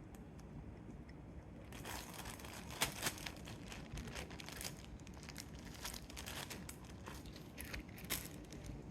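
Chopped red onion and cucumber pieces being handled and pressed into a glass jar: a run of crinkling and crunching noises, with a couple of sharper clicks about three seconds in.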